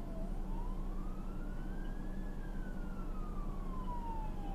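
Emergency vehicle siren on a slow wail, rising in pitch for about two seconds, then falling slowly.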